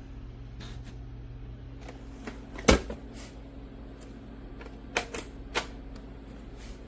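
A handful of scattered sharp clicks and knocks, the loudest about three seconds in, over a low steady hum.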